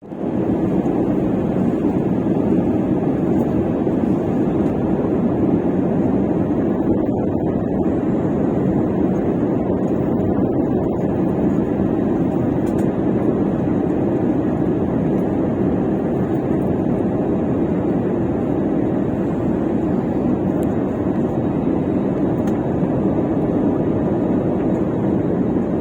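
Steady cabin noise inside a jet airliner on approach to landing: engine and airflow noise heard as an even, low rumble.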